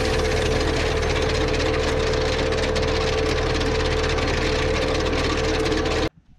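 Ford 7740 tractor's diesel engine running steadily under load, pulling a tined grassland aerator whose tines and frame rumble and rattle over the ground, with a steady hum through it. The sound stops abruptly about six seconds in.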